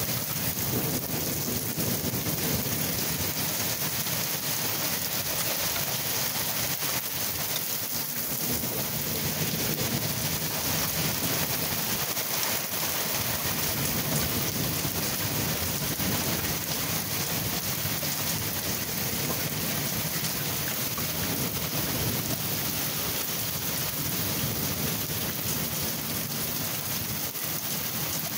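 Steady rain falling, with rolling thunder rumbling low underneath it throughout.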